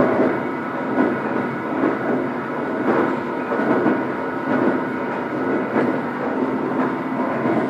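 Heavy facing milling machine running: a steady mechanical hum from its drive, carrying several steady tones and swelling about once a second.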